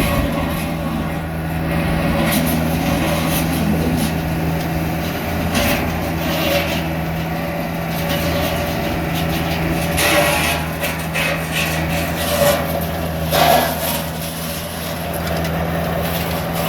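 A heavy engine running steadily at a constant speed, with irregular mechanical clatters and squeaks over it.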